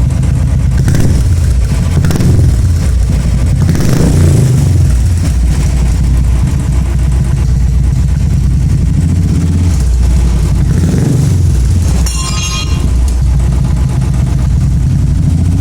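Royal Enfield single-cylinder engine running through a short-bottle aftermarket silencer, idling with a few throttle blips. There is a brief high clicking about twelve seconds in.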